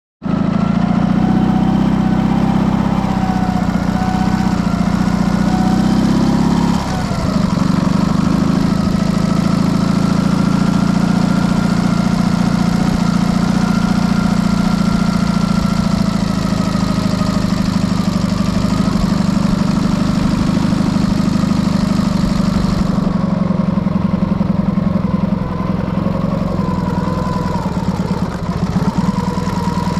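Dnepr motorcycle's flat-twin engine running continuously, its pitch drifting slightly, with a sudden change in the engine note about seven seconds in.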